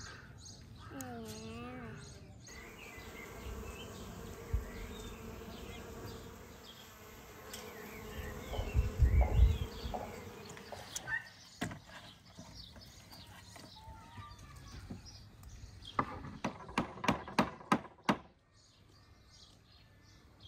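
A bee buzzing steadily at flowering blossoms, with birds chirping around it. A quick run of sharp clicks comes near the end.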